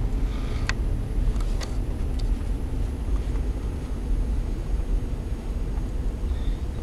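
Freight train passing, led by a single Norfolk Southern GP38-2 diesel-electric locomotive: a steady low rumble of engine and wheels, with a few sharp clicks in the first two seconds.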